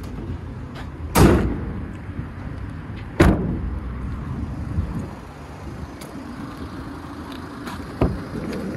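Rear barn doors of a Peugeot Boxer van being shut: two slams about two seconds apart, the first with a longer ringing tail, then a smaller knock near the end as the sliding door handle is gripped. The van's 2.2 diesel idles steadily underneath.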